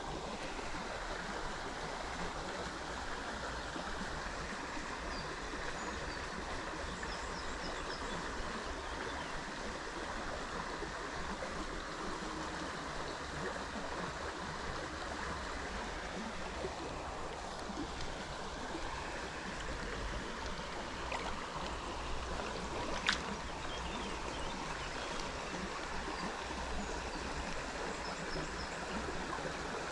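A small, fast-running stream rushing steadily over stones. One sharp click stands out about two-thirds of the way through.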